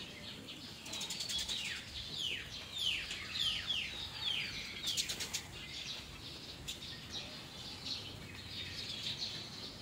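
Small birds chirping: a busy run of quick, overlapping down-slurred chirps in the first half, thinning to scattered chirps later.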